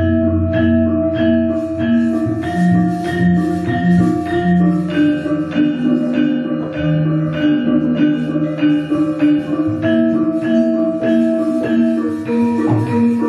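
Javanese gamelan ensemble playing an instrumental passage: bronze metallophones strike a steady run of pitched notes, over a deep gong that is ringing at the start and fades out about two seconds in.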